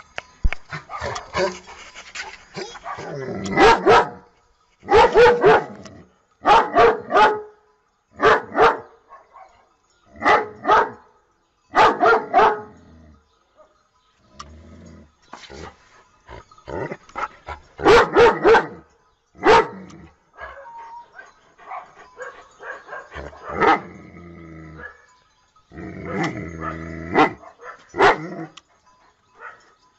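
Dogs barking: loud, sharp barks, often two or three in quick succession, with short gaps between.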